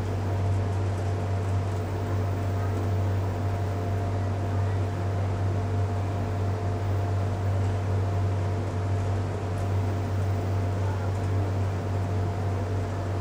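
Steady low mechanical hum with a constant hiss over it.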